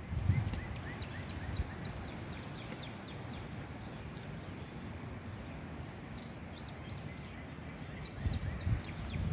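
A songbird singing runs of quick, short, falling chirps, once near the start and again near the end, over a steady outdoor hiss. Low rumbling bumps come at the start and again just before the end.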